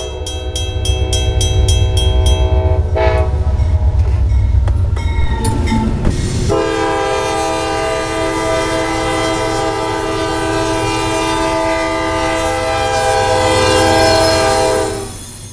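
Diesel freight locomotives sounding their multi-note air horn over a heavy low engine rumble: one long blast in the first three seconds with a fast even ticking above it, then a second long blast starting about six and a half seconds in that cuts off suddenly near the end.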